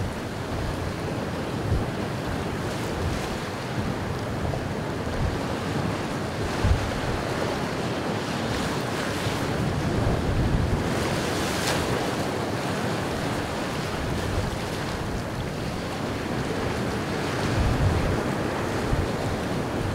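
Rough sea with waves breaking and surf rushing, and wind buffeting the microphone in uneven low gusts.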